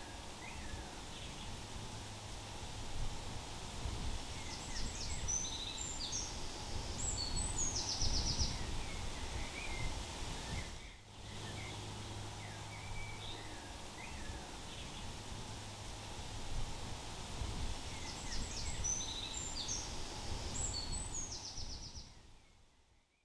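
Outdoor ambience of small birds calling in short chirps and trills over a steady low rumble. Loudness dips briefly about halfway through, after which the same stretch of birdsong repeats, and the sound fades out at the end.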